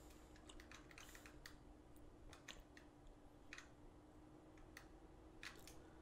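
Near silence: room tone with a faint steady hum and scattered faint, irregular clicks.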